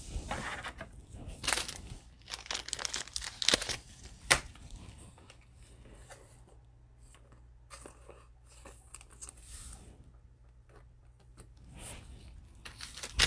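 Gloved hands handling trading cards and plastic cello-pack wrappers, crinkling and crackling. Several sharp crackles come in the first few seconds, then only faint handling until it picks up again near the end.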